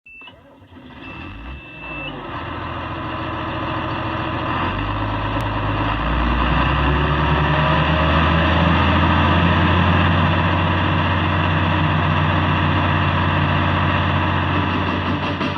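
Heavy farm machine's engine running up: it grows louder over the first few seconds, steps up in pitch about five and six seconds in, then runs steadily and loud. A short high electronic tone, like a warning beep, sounds right at the start, and a longer one follows about a second in.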